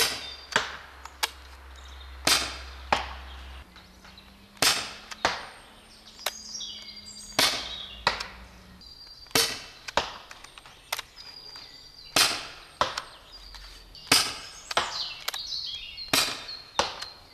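HDS 68 .68-calibre CO2 airgun firing steel nail darts, about eight shots every two to three seconds. Each sharp pop is followed about half a second later by a second crack, the dart hitting the target some 20 meters off.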